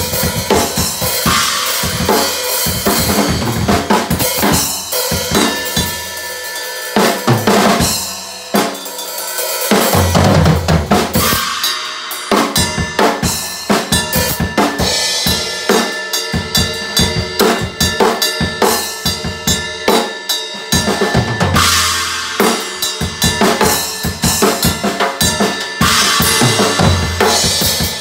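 Acoustic drum kit played solo with no backing music: a busy, unbroken run of kick drum, snare and cymbal strokes with fills. Heavier low drum hits with cymbals ringing over them land about ten seconds in, again past twenty seconds and near the end.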